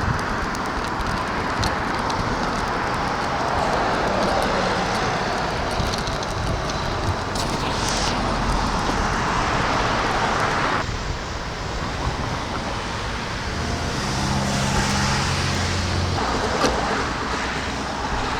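Steady road traffic noise with a rushing haze. About three quarters of the way through, a low engine hum comes in for a couple of seconds.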